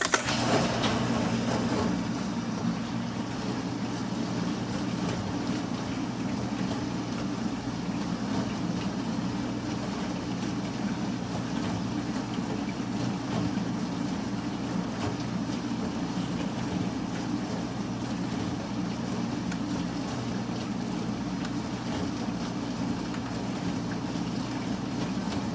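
Industrial shredder's rotating cutter shaft chewing through laminated chipboard panels: a steady low machine drone with grinding noise over it, a little louder for the first couple of seconds.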